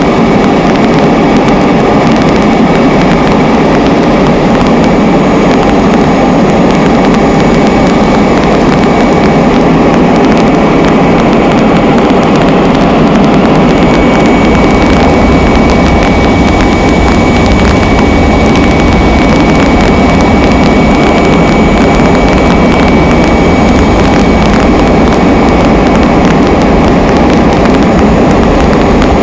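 Steady, loud aircraft engine noise heard from on board during an aerial flight, with a thin high whine that grows stronger about halfway through.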